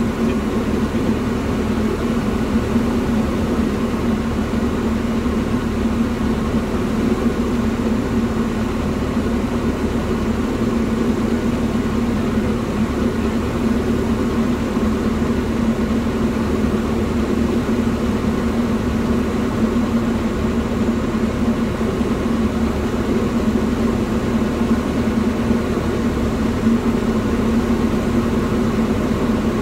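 Diamond DA40 single-engine propeller aircraft's engine and propeller droning steadily on final approach, heard from inside the cockpit.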